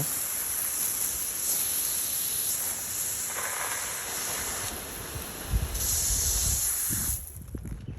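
Steady hiss of running, spraying water, which is shut off about seven seconds in.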